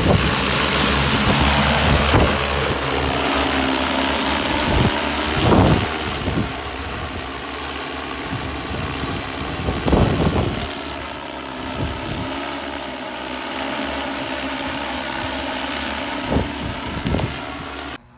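Multirotor crop-spraying drone's propellers running at full lift, a loud steady whir as it takes off and flies, with a few brief louder rushes. The sound cuts off suddenly near the end.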